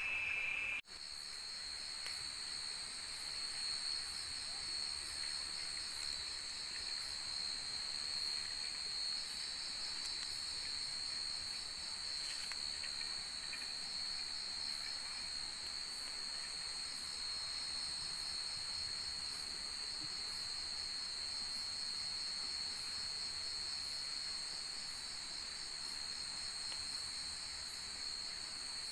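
Night insects trilling in a steady, unbroken, high-pitched chorus. Just under a second in, the sound drops out for an instant and a higher-pitched trill takes over from a lower one.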